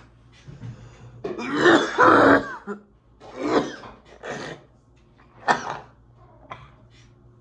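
A man coughing in a series of fits with throat clearing after a deep hit from a disposable vape: a long coughing bout about two seconds in, then shorter single coughs that thin out toward the end.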